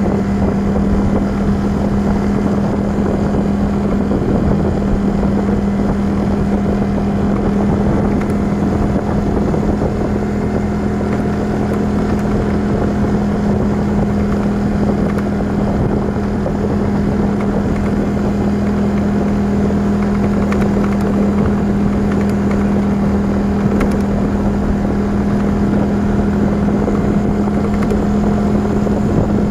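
Motorcycle engine running at a steady cruising speed on the move: an even hum that holds one pitch, over road and wind noise.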